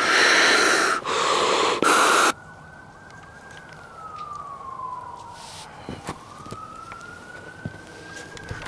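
Three loud bursts of hiss-like noise that start and cut off suddenly in the first two seconds. Then a quieter wailing siren, its pitch rising and falling slowly twice.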